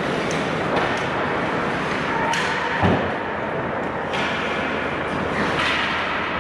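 Ice hockey play close to the net: skate blades scraping the ice, with a few sharp stick-and-puck clicks and one dull thump about three seconds in.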